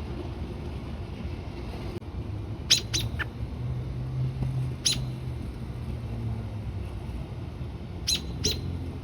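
American robin giving short, sharp chirp calls: three in quick succession about three seconds in, one near the middle, and two close together near the end.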